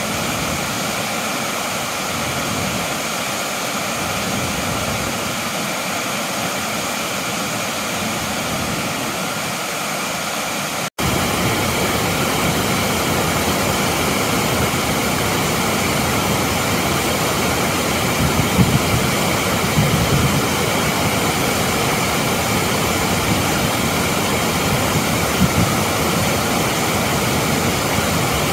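Steady rush of two waterfalls pouring into a rocky creek. After a sudden break about eleven seconds in, it gives way to the louder, closer rush of shallow creek water running fast over stones.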